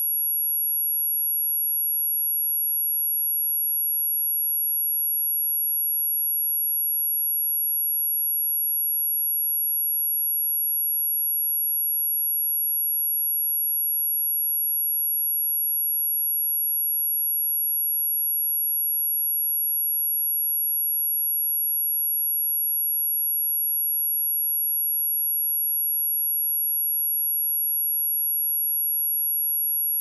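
A steady, high-pitched pure sine tone at 11,326 Hz, one unchanging test tone held without a break.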